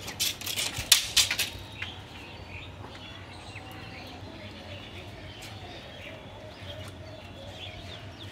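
A quick run of sharp clicks and knocks in the first second and a half, then faint bird chirps over a low steady hum.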